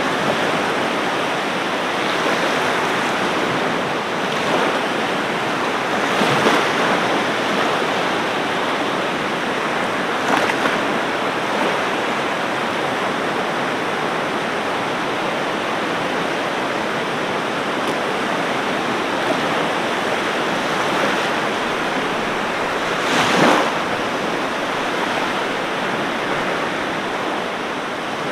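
Ocean waves washing on a beach: a steady rush of surf, with brief louder surges about six and ten seconds in and a stronger one near twenty-three seconds.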